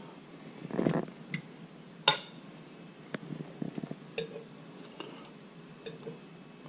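Metal forks scraping and clinking against a cast-iron skillet and a glass baking dish as fish fillets are lifted across. A short scrape about a second in, then a few sharp clinks, the loudest about two seconds in, with lighter taps after.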